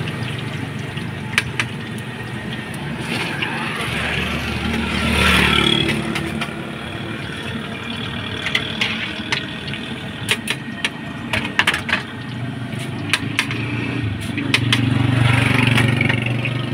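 Potato fries frying in a large wok of hot oil with a steady sizzle. A wire-mesh strainer knocks against the metal pan in a string of sharp clinks in the second half. An engine hums underneath, loudest near the start and near the end.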